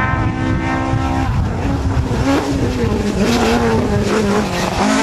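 Ford Escort Mk2 rally car engine at high revs. It holds one steady note for about a second, drops, then rises and falls repeatedly from about two seconds in as the throttle is lifted and reapplied.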